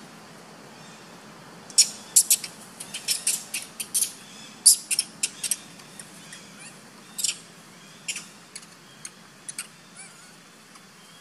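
A rapid series of short, sharp high-pitched animal chirps, coming thick for a few seconds and then thinning out.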